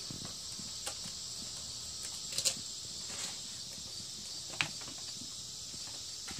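Kittens playing at a sisal scratching post: a few scattered soft taps and scratches from paws and claws on the post and carpet, the clearest about two and a half seconds in and again near four and a half seconds, over a steady faint hiss.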